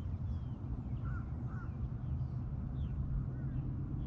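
A few faint bird chirps, each a short rising or falling note, over a steady low rumble.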